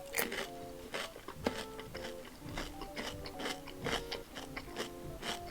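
A person chewing and biting food close to the microphone, a string of short crunchy clicks, over background music with steady held notes.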